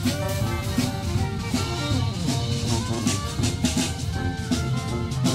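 Jazz band music with a drum kit playing a steady beat under the melody.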